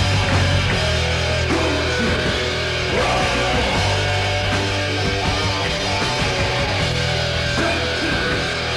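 Thrash metal band playing: distorted electric guitars riffing over bass and drums, recorded live in a rehearsal room.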